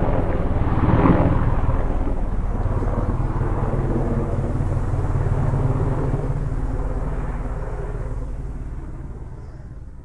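Helicopter flying, a steady low rotor and engine drone, loudest about a second in and fading away over the last few seconds.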